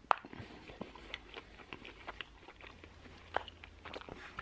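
Someone eating pizza close to the microphone: irregular small chewing clicks and smacks, with a sharper click just after the start and another about three and a half seconds in, over a faint low hum.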